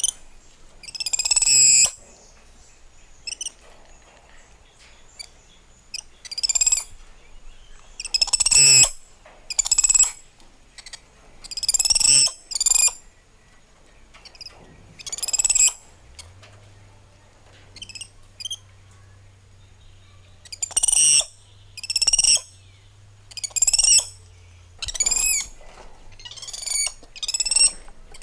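Spider monkeys calling: a string of high-pitched chirping calls, each under a second long, coming one to three seconds apart.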